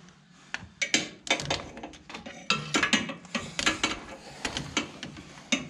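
Ratchet, extension and socket clinking and clanking against metal as they are worked in among the long-tube header pipes to reach a header bolt: irregular sharp metallic clicks, several a second.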